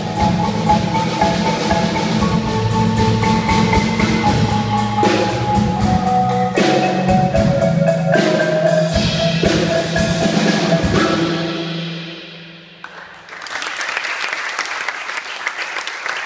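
Front ensemble of marimbas and other mallet keyboards playing a slow legato chord exercise in fast, even strokes, changing chords every second or two; the final chord rings and fades out about twelve seconds in. Then audience applause starts for the last few seconds.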